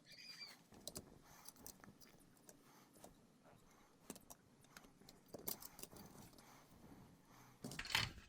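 Faint, scattered clicks and small clinks of tools and small parts being handled during the teardown of a toy robot. A brief high squeak comes at the start, and a louder clatter near the end.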